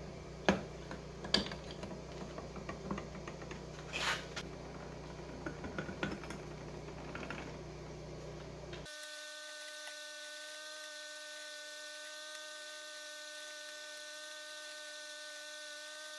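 Light clicks and taps of metal parts being handled and cleaned. About nine seconds in, a steady electric whine made of several fixed pitches abruptly takes over.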